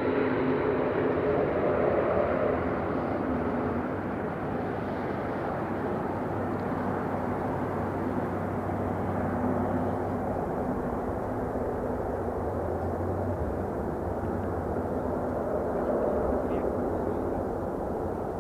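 Jet engines of a twin-engine airliner on final approach: a steady rumble with a low drone that thins out over the first few seconds as the plane draws away, then holds steady.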